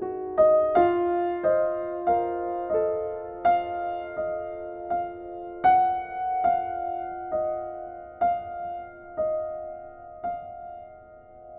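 Gentle solo piano background music: single notes struck at a slow, even pace, each ringing out, growing quieter near the end.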